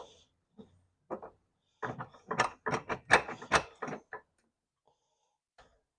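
A run of short, sharp metal clicks and ticks as a hand tool works a roll pin out of a 1967 Pontiac Firebird's vent window knob. A few come singly early on, then a quick cluster of about ten follows between two and four seconds in.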